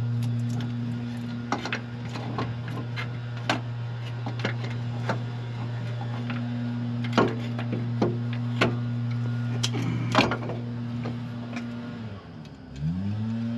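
Scattered sharp metal clinks and knocks from hand tools working on the truck, over a steady low hum. Near the end the hum drops in pitch and slides back up.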